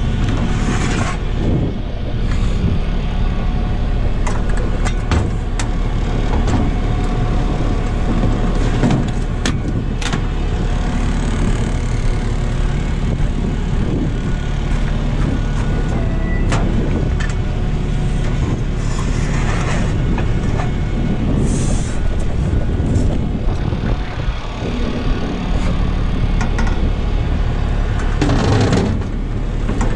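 Tow truck engine running steadily, with a few sharp metal clanks about a third and halfway through.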